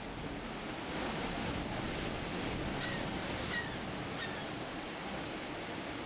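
Ocean surf washing in and breaking over shoreline rocks: a steady rushing wash that swells a little about a second in, with a few short high chirps near the middle.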